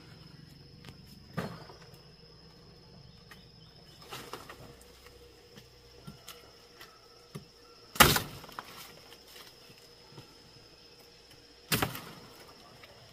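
Long knife chopping into the stalk of a green banana bunch: four sharp strikes a few seconds apart, the loudest about eight seconds in. A steady high-pitched insect call runs underneath.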